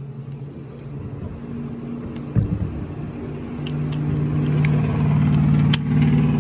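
A motor vehicle's engine running with a steady hum that grows louder in the second half. There is a heavy thump about two and a half seconds in and one sharp click near the end.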